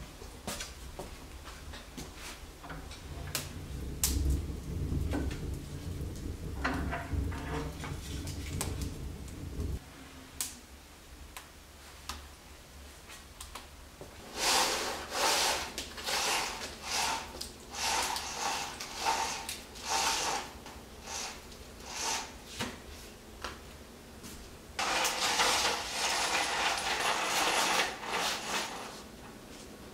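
Wood fire crackling inside a fireplace insert, with scattered sharp pops and a low rumble for several seconds. In the second half comes a series of short scraping, rustling bursts about a second apart, then a longer continuous rush of noise lasting about three seconds.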